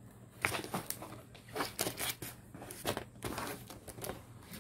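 Small clear plastic bag crinkling as it is picked up and handled, in an irregular string of short crackles that starts about half a second in.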